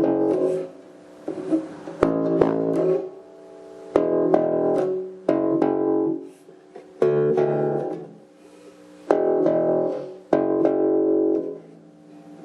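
Glarry Jazz-style electric bass played through its Glarry amp on the neck pickup with the tone knob rolled fully down, giving a less bright sound. About seven plucked notes, each ringing for about a second.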